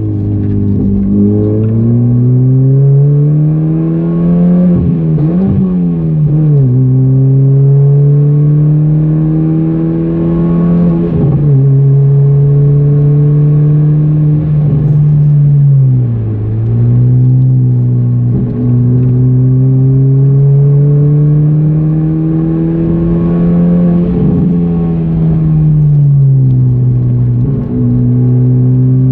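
Car engine heard from inside the cabin on a circuit lap, its note climbing steadily under acceleration and dropping quickly several times at gear changes and lifts for the corners.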